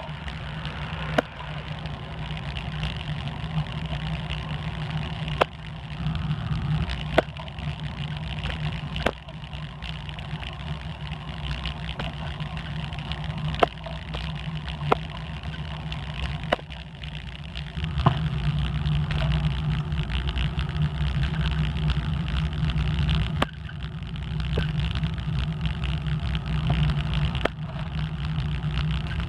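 Wind rumble and road noise on a handlebar-mounted microphone of a moving bicycle. Sharp knocks come every few seconds as the bike jolts over cracks in the pavement. The rumble grows louder a little over halfway through.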